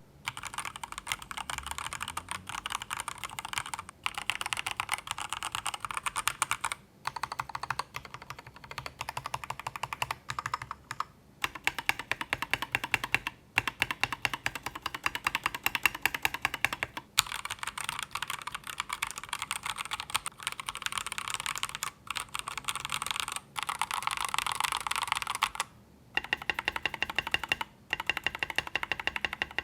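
Typing sound test on AKKO 3098 mechanical keyboards fitted with TTC switches: rapid runs of key presses clacking, in several stretches broken by brief pauses as different switches are tried.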